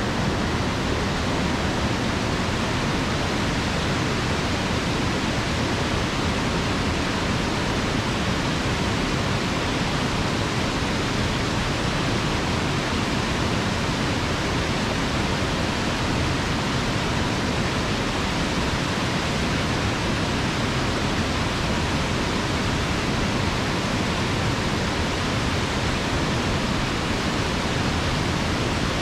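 Steady roar of a waterfall: rushing water crashing down, unbroken and even.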